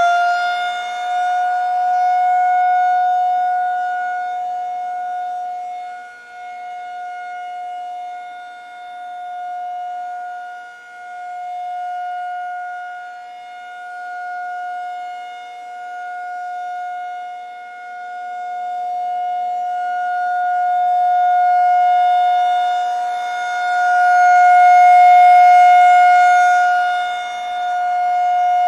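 Outdoor tornado warning siren holding a steady wail after winding up to full pitch. Its loudness swells and fades every few seconds, loudest near the end.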